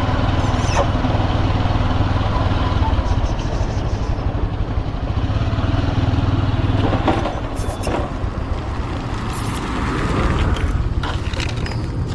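A motor vehicle engine running steadily with a low hum, easing off about seven seconds in, with a few scattered clicks.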